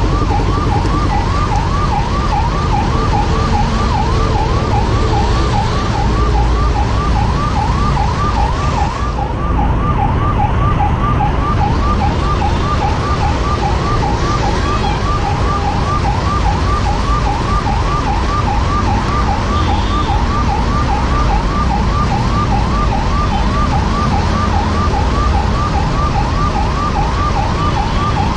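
Ambulance siren sounding a quick, repeating rising sweep without a break, over the low rumble of engines in stalled traffic.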